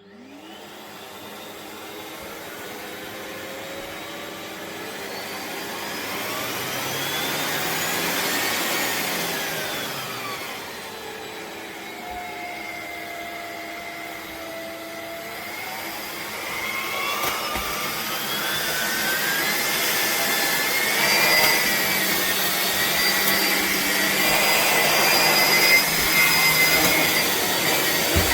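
Philips Series 9000 bagless vacuum cleaner switching on and running, its motor whine rising in pitch, falling back about ten seconds in, then climbing again and holding a higher pitch through the second half.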